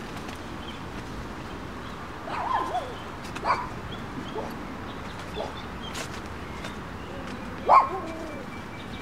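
Several short, scattered animal calls over a steady background hiss, the loudest near the end.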